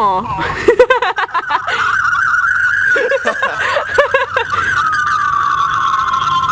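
Weird warbling vocal noises and snickering played back through cell phones, over a steady high whistling tone like phone feedback that slides lower in pitch in the second half.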